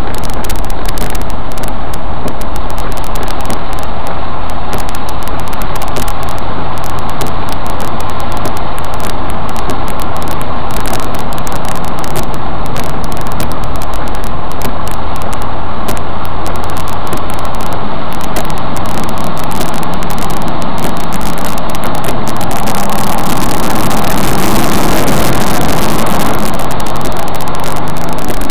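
A car's engine and road noise heard from inside the cabin while driving through floodwater, loud throughout with a constant crackle. About 23 seconds in, a louder hiss of water spray washes over the car for a few seconds.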